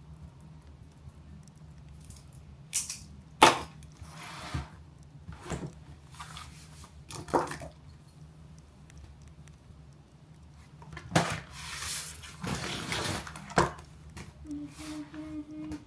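Several sharp clicks and knocks of small objects being handled and set down on a desk, with rustling in between. A woman starts humming near the end.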